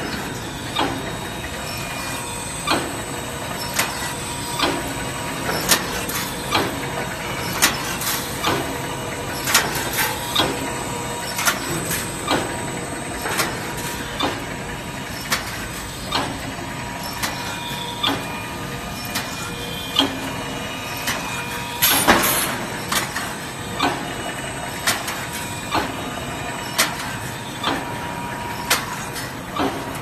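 Automatic bird cage mesh welding machine running, with a sharp clack about once a second as it cycles through its weld strokes, over a steady machine hum. One louder, longer burst comes about two-thirds of the way through.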